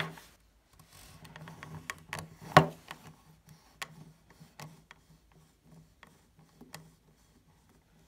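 Hard plastic toy figure being handled, its arm lifted and moved: scattered light clicks and taps, with one sharper knock about two and a half seconds in.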